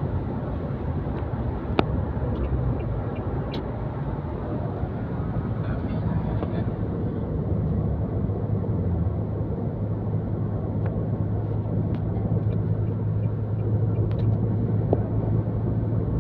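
Steady low rumble of a running vehicle, with a low hum that grows stronger about halfway through and a sharp click about two seconds in.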